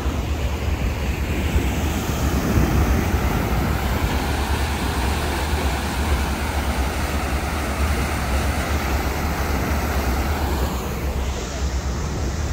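Passenger ferry underway: a steady low engine rumble under the rushing hiss of the churned-up wake.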